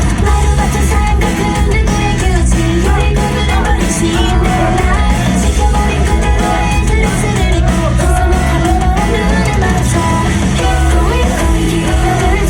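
Live idol pop song, loud, with singing over a pop-rock backing and a steady pulsing beat.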